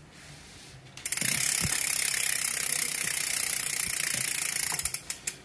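Mountain-bike rear freehub buzzing with rapid pawl clicks as the spun wheel coasts. It starts suddenly about a second in and breaks into a few separate clicks near the end.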